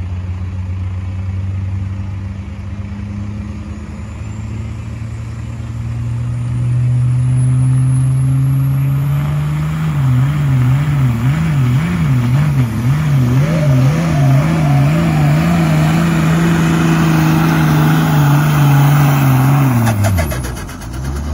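Cummins diesel in a 1993 Ford F-350, running at full load on a truck pull with its FMW S467.7 turbo. The engine note climbs slowly, then surges up and down about twice a second for several seconds before steadying. It drops away sharply near the end. The uploader puts the surging down to the wastegate opening or the turbo surging, or possibly stock pushrods bending at 5,000 rpm.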